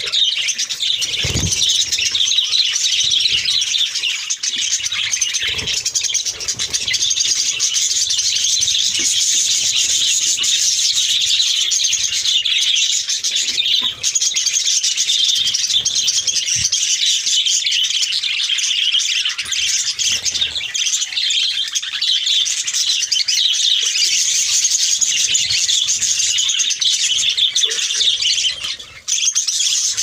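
A flock of budgerigars chattering without pause, a dense mass of high chirps and warbles from many birds at once.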